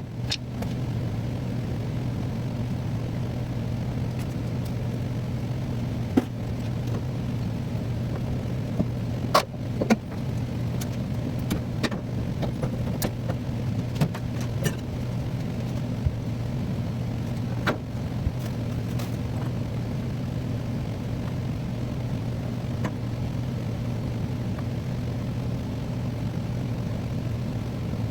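A steady low machine hum, with scattered sharp clicks and knocks, the loudest about nine to ten seconds in.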